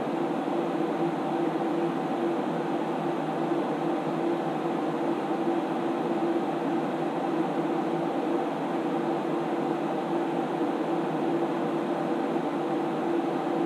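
Steady whir of the SGI Onyx2's cooling fans: an even rush of air with a constant low hum, holding level without change.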